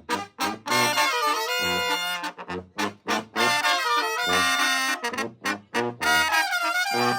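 Mexican banda de viento playing: trumpets, trombones and saxophones sound chords and short punchy phrases over a deep bass line, with several abrupt stops between phrases.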